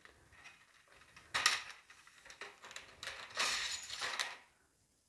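An LED tube light's driver board being slid out of the tube's housing by hand. There is a short scrape, then a longer one about three seconds in.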